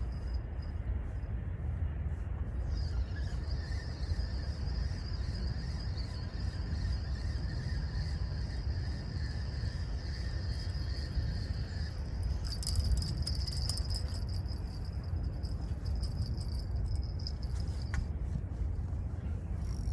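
Insects trilling steadily in a high, thin tone, over a constant low rumble of wind on the microphone. The trill starts about three seconds in, grows brighter around the middle and fades out near the end.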